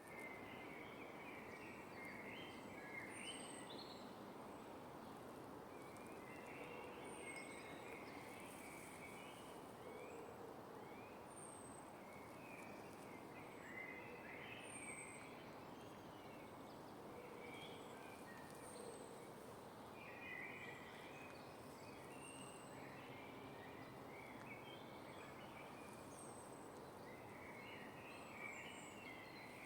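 Birds singing in woodland, faint against a steady hiss: short chirping song phrases every few seconds, and a thin, high, falling call note repeating about every two seconds.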